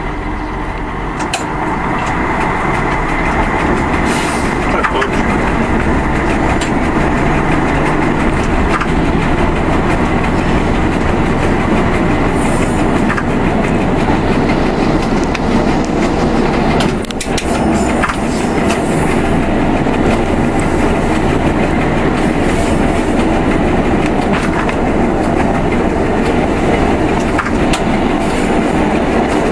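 A ČD class 810 railbus's underfloor six-cylinder diesel engine running as the railcar pulls away at low speed, with its wheels rolling over the track. The sound dips briefly just past halfway.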